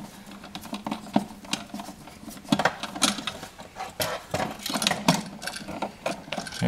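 Flat-head screwdriver turning out a light switch's mounting screw: a fast, irregular run of small clicks and scrapes, thickest in the middle, then the switch rattling as it is pulled out of the wall box near the end.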